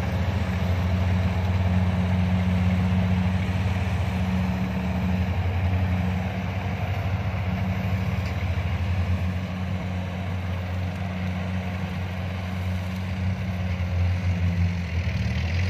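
Kubota DC-70 combine harvester running as it cuts rice: a steady diesel engine hum with a low drone, easing off a little midway.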